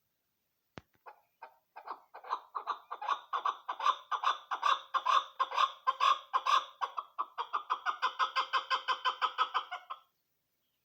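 Chukar partridge calling: a long run of rapid clucking notes that starts sparsely about a second in and speeds up to about five notes a second. It keeps going steadily, then stops near the end. A single sharp click comes just before the calling begins.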